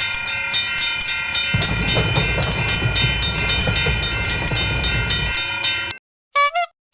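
Japanese railroad crossing warning bell ringing in rapid, evenly repeated clangs, joined for a few seconds by a low rumble. The ringing stops suddenly about six seconds in, and a few short electronic tones follow near the end.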